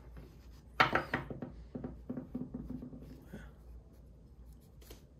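Handling sounds from a folding knife: a sharp snap about a second in, then quieter rubbing and small clicks, with a faint click near the end.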